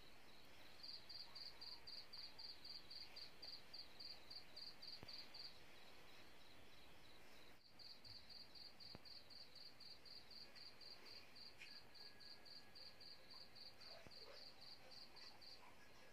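Faint cricket chirping in an even rhythm, about four chirps a second, stopping for about two seconds midway and then going on.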